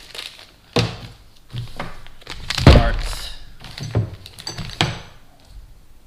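Bagged brake-kit hardware and parts being handled and set down on a table: a series of about six knocks and thunks, the loudest about two and a half seconds in, followed by plastic bags crinkling, with a light metallic ring on a couple of knocks near the end.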